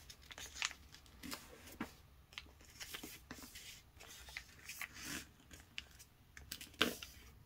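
Faint rustling and light taps of a folded sheet of paper being shifted and pressed flat by hand on a tabletop, with a sharper tap near the end.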